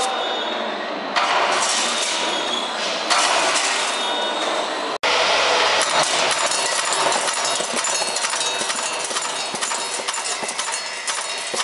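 Steel-strip straightening and cutting line running: a broad mechanical hiss that steps up in blocks of about two seconds, then, after a brief break, a dense clatter of rapid small metallic clicks and rattles from the roller straightener and cutting head.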